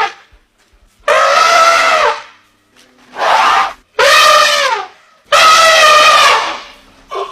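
Elephant trumpeting: four loud, brassy calls, each about a second or a little longer, separated by short pauses, the pitch dropping at the end of each call.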